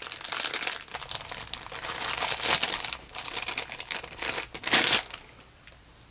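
Packaging crinkling and rustling as it is handled, in irregular bursts for about five seconds, then stopping.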